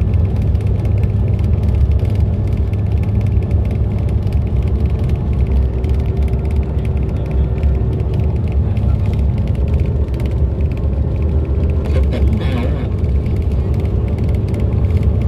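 A vehicle driving, heard from inside: a steady low rumble of engine and road noise.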